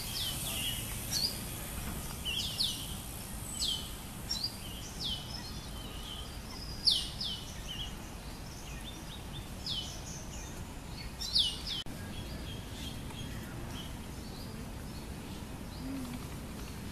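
Bird chirping: short, high, sharply falling notes repeated every second or so, some in quick pairs, thinning out after about twelve seconds, over a low steady background rumble.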